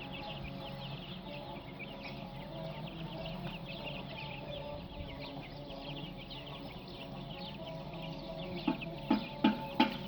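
Chickens clucking over a constant dense chatter of short, high, falling chirps. Near the end a bird gives a run of loud clucks, about three a second.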